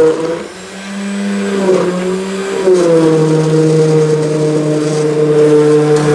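Handheld immersion blender motor running in a metal bucket of liquid gelato base, a steady hum. About half a second in it dips in loudness and its pitch wavers, then from about three seconds on it holds steady again.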